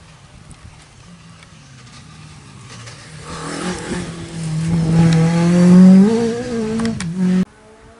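Ford Escort Mk2 rally car's engine coming closer at speed, growing louder and climbing in pitch as it accelerates. It is loudest about six seconds in and cuts off suddenly near the end.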